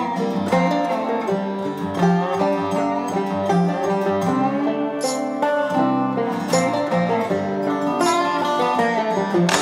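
Background music: plucked string instruments playing a quick run of notes in a bluegrass vein.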